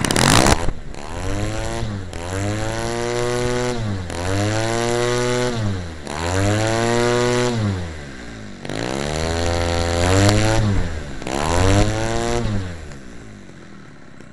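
Homelite 30cc two-stroke leaf-blower engine, converted for RC aircraft with a gutted muffler and welded-on pipe, turning an 18x6 propeller. It opens with a sudden loud blast, then is revved from low speed up to full throttle and back down about six times, dropping back toward idle near the end.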